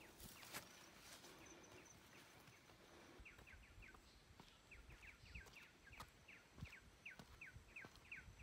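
Faint outdoor near-quiet with trains of short, quick falling chirps from a calling wild animal, several a second, mostly from about three seconds in, and a few light taps.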